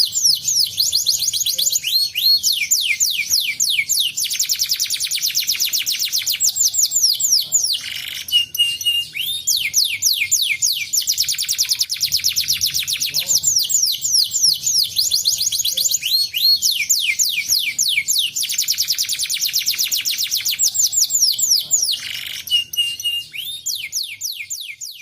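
Canary singing: long, fast trills of repeated downward-sweeping notes, with a few short held notes about eight seconds in and again near the end.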